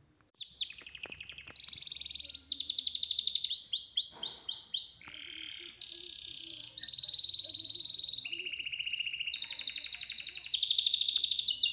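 A songbird singing a run of fast trills, each phrase about a second long and made of one note repeated quickly at a new pitch.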